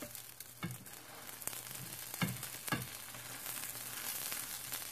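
Folded egg omelette frying in a pan with a soft, steady sizzle. A spatula knocks or scrapes against the pan a few times in the first three seconds.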